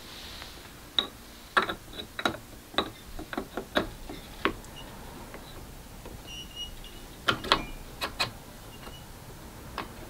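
Clicks and small knocks of parts being handled on a Kalita Next G electric coffee grinder's grinding head as its burr is taken off. There is a quick run of clicks in the first half and a few more about seven to eight seconds in.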